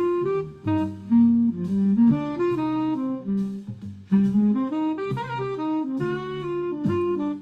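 Jazz tune led by a saxophone, a moving melody with a lower line underneath: closing music for a radio play.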